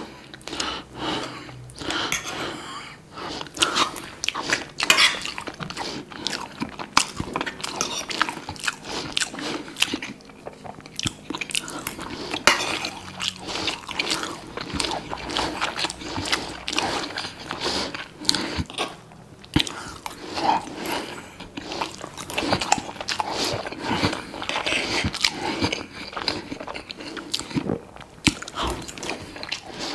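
Close-miked chewing and mouth sounds of a man eating rice and meat patties: irregular wet smacks and small clicks as he chews and swallows.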